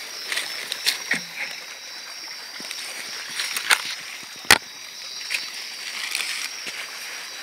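Footsteps crackling through dry leaf litter and twigs, with one sharp snap about halfway through. Behind them runs a steady high-pitched chorus of night insects.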